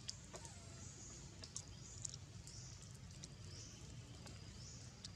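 Faint outdoor ambience: a short, high, rising chirp from a small bird or insect repeats about once a second, with a few sharp clicks over a low rumble.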